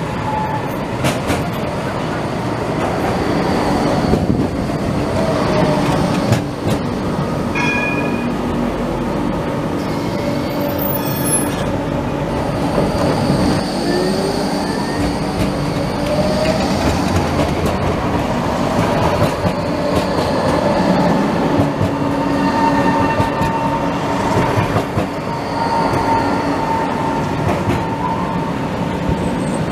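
Porto Metro Eurotram light-rail vehicle pulling in along the platform: a steady rumble of wheels on rails with electric whining tones that shift in pitch, and a few brief squeals and clicks from the wheels.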